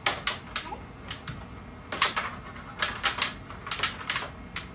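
Plastic puck of a toy tabletop hockey game clacking against the players' plastic strikers and the table's rails in quick, irregular hits, some in rapid pairs.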